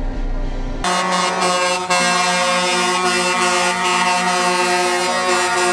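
Music cuts in about a second in, replacing a low outdoor rumble: a held chord of many steady tones with one note that slides up and back down in the middle.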